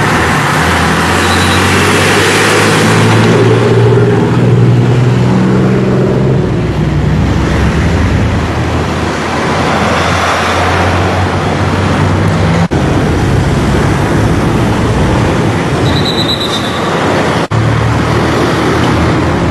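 Road traffic: vehicles running past on a highway, with a nearby engine running steadily underneath.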